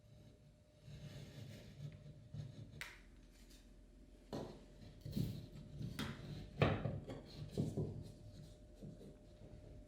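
Hand work on plasterboard: irregular scraping and rubbing with several sharp knocks and taps, the loudest about two-thirds of the way through, over a faint steady hum.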